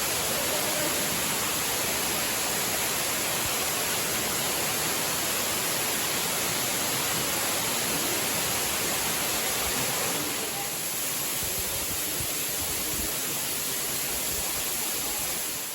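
Waterfall splashing down, a steady rush of falling water, slightly quieter about ten seconds in.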